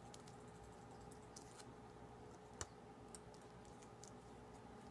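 Near silence: faint room tone with a few soft clicks and ticks from handling wires and a roll of electrical tape, the sharpest about halfway through.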